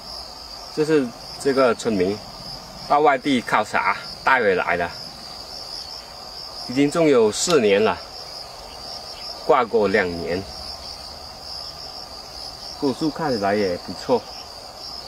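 Steady high-pitched drone of insects in the orchard, running without a break. A man's voice speaks in short phrases over it and is the loudest sound.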